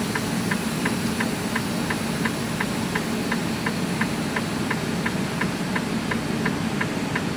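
Semi-truck's diesel engine running steadily, heard from inside the cab, with a regular light clicking about three times a second over it.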